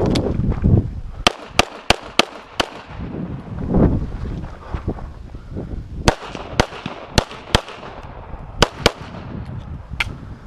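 Handgun shots fired in quick strings during a practical shooting stage, about a dozen sharp cracks in groups of two to five with pauses of a second or more between groups. Low rumbling noise rises between shots near the start and about four seconds in.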